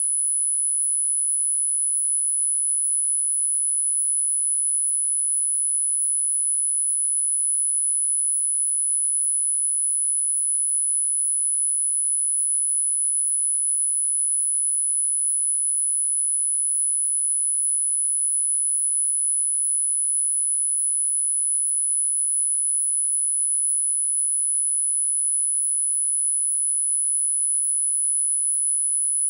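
A single pure electronic sine tone, very high-pitched, held perfectly steady at an unchanging level: the generated 'frequency' of a subliminal listening track.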